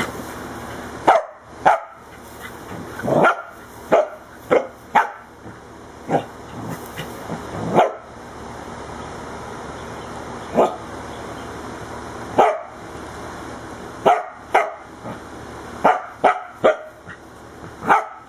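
Corgi barking in play: about sixteen short, sharp barks in irregular bunches, with pauses of up to a couple of seconds between them.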